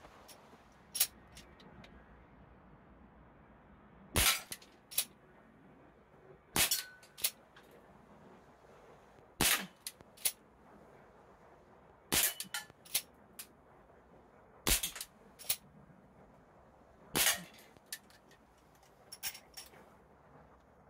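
Umarex S&W 629 CO2 revolver firing six shots about two and a half seconds apart, each a sharp pop followed by smaller knocks and clangs from the tin-can targets.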